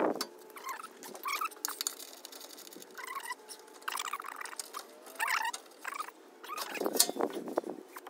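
Hand work on a car's underbody guard as its fasteners are undone: scattered small clicks and taps with several short squeaks, and a sharper click about seven seconds in.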